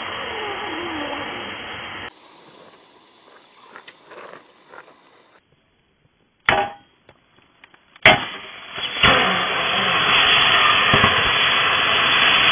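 Hammer blows on a tool driven into a lithium-polymer battery pack inside a fireproof LiPo bag: two sharp strikes, one about six and a half seconds in and one about eight seconds in. About a second after the second strike a loud steady hiss starts, the punctured pack venting smoke; a similar loud hiss is heard at the start and breaks off about two seconds in.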